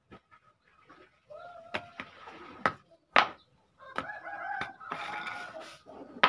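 Sharp clicks and knocks of a plastic scrub brush head being pushed back onto its metal pole handle and set down on a concrete floor. A rooster crows in the background from about four seconds in, after a shorter call earlier.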